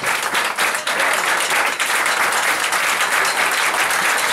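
A crowd of audience members clapping along to a traditional Bulgarian clapping pattern, many hands at once, the claps ragged because people have fallen into their own rhythms.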